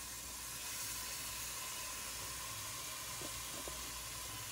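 Beef steak sizzling steadily in hot olive oil in a Neoflam frying pan, just after being laid in.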